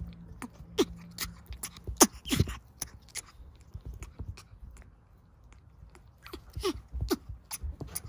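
African grey parrot chicks giving short calls that drop in pitch, several times, among many sharp clicks and taps from beak and claws close to the microphone.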